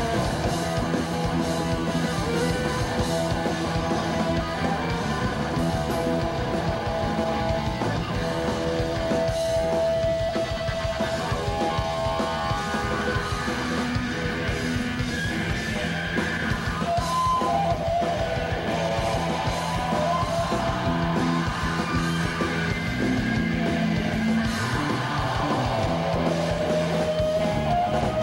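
Rock band playing live: electric guitars through amplifiers over bass and drums, in one continuous song.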